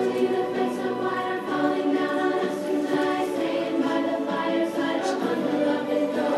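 Song music with a group of voices singing together in long held notes.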